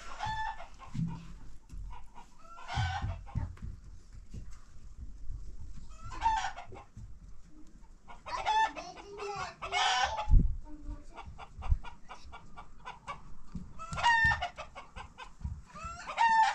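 Chickens clucking, with a rooster crowing in a longer call just past halfway. A few dull knocks underneath, the loudest a little after halfway.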